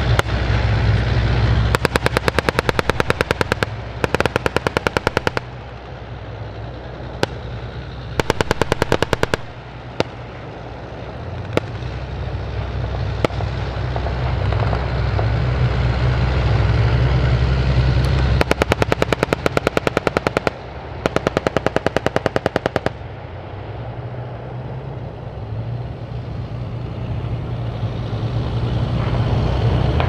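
Five bursts of rapid automatic gunfire, each a second or two long, with a few single shots between them. Under the gunfire a boat's engine drones steadily and grows louder near the end.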